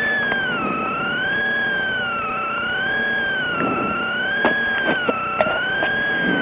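A high, siren-like tone wavering slowly up and down, with a few light clicks and taps in the second half.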